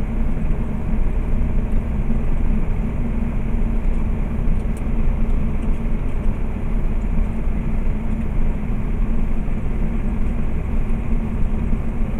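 Tractor-trailer's diesel engine and road noise while cruising at speed, heard from inside the cab as a steady low drone.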